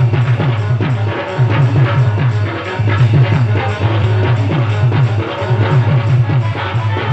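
Loud dance music with a heavy, steady beat.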